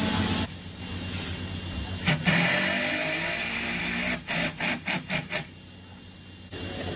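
Cordless drill/driver running in one steady run of about two seconds, then about five short trigger bursts as it drives a fastener into a hardwood cabinet frame.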